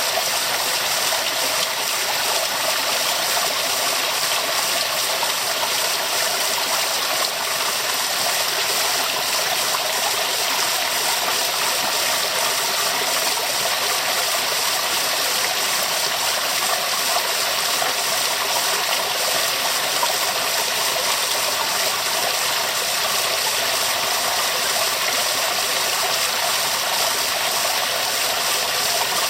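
Waterfall: a steady rush of falling water, even throughout, with most of its sound in the middle and upper range.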